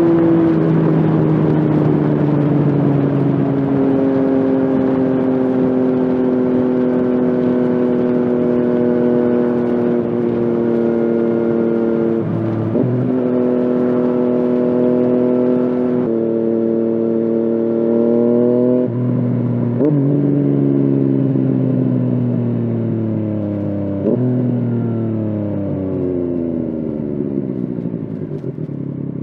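Yamaha FZ-09's three-cylinder engine under way, heard from on the bike: it holds fairly steady revs for the first dozen seconds, with a brief break in the note around a gear change. From about the middle it slows through several downshifts, each a quick rise in pitch that then falls away, and it winds down to a lower note near the end.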